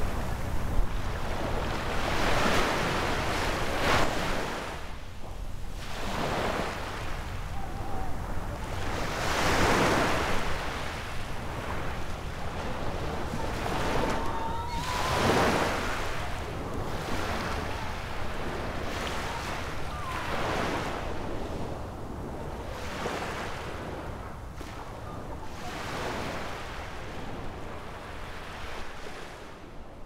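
Small sea waves washing onto a beach, swelling and ebbing every two to three seconds and fading out toward the end.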